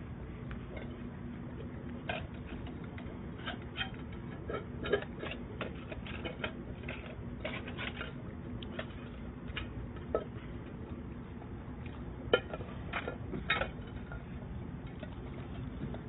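Puppies feeding from metal food bowls: irregular clinks and clatters of the bowls, with a few louder knocks in the middle and later on, over a steady low hum.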